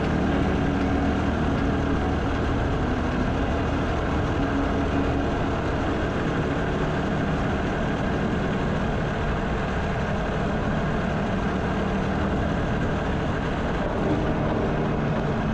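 Motorcycle engine running under way, with steady wind and road noise.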